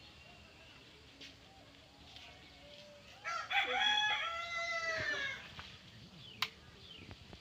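A rooster crowing once, one call of about two seconds a few seconds in; a single sharp click follows near the end.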